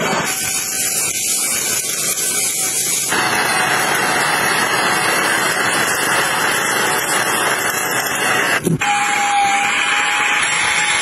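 Cordless vacuum cleaners running with a steady suction hiss. The sound changes abruptly about three seconds in and again near the end as one vacuum gives way to another, and the last is a handheld mattress vacuum with a faint steady whine.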